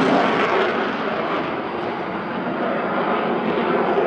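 Jet noise from a Sukhoi Su-35 fighter's twin afterburning turbofan engines as it flies overhead, a steady loud rush that eases a little about a second in.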